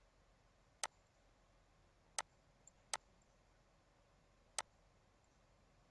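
Four single computer mouse clicks, unevenly spaced, over near silence.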